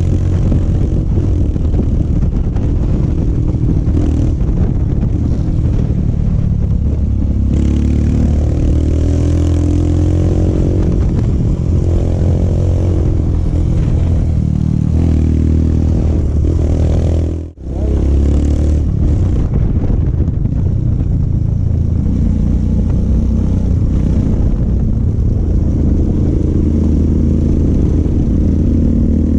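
Royal Enfield Himalayan's single-cylinder engine running through an aftermarket Akrapovic exhaust while riding, its note rising and falling with the throttle. The sound drops out for an instant about two-thirds of the way through.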